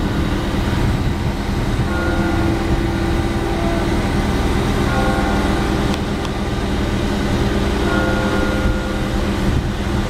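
Mobile crane's engine running steadily as it lowers a load, with a higher whine that comes in for about a second roughly every three seconds.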